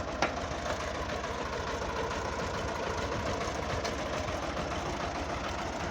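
Tractor engine idling steadily, with one sharp click a fraction of a second in.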